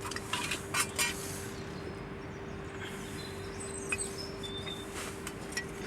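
A few light clicks and knocks of brake parts being handled and set down, over a steady background hum, with a few faint bird chirps later on.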